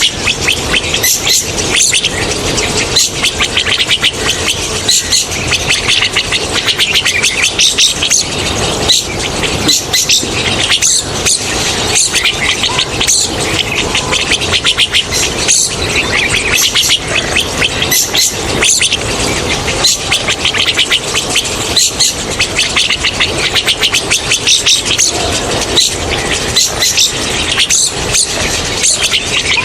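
Rosy starling calls: a continuous, harsh, scratchy stream of rapid high squealing notes, with no pause.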